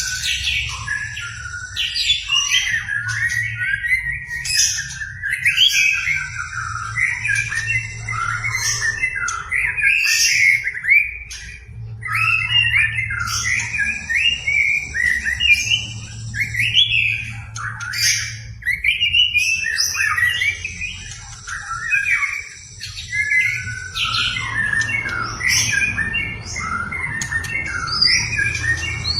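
A white-rumped shama sings continuously in full song, running through its repertoire of quick, varied whistles and chirps with only brief pauses. A steady low hum sits underneath.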